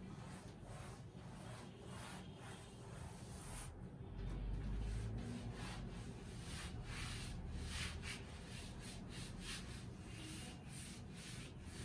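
A cloth duster rubbed back and forth across a chalkboard, wiping off chalk writing in quick repeated strokes that come faster from about six seconds in. A low rumble runs underneath from about four seconds in.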